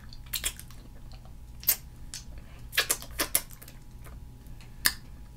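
Wet mouth smacks and sucking clicks as fingers are licked clean of sauce: a few sharp, irregularly spaced smacks picked up close to the microphone.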